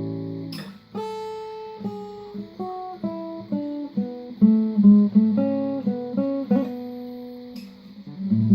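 Acoustic guitar playing without vocals: a strummed chord rings out and fades, then a picked run of single notes, then a new chord is struck near the end.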